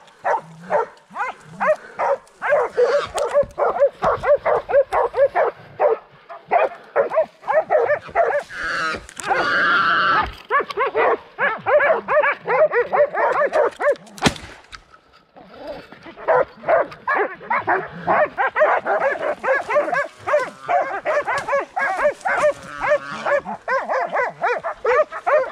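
Hunting dogs barking rapidly and continuously at a wild boar that they have caught and are holding. About fourteen seconds in there is one sharp crack, followed by a brief lull before the barking resumes.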